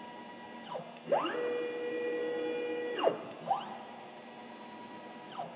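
MultiCam M Series CNC router's axis drive motors whining as the gantry is jogged at fast jog speed. The pitch rises as each axis speeds up, holds steady while it travels, and falls as it stops. One long move runs through the middle, with shorter moves before and after it.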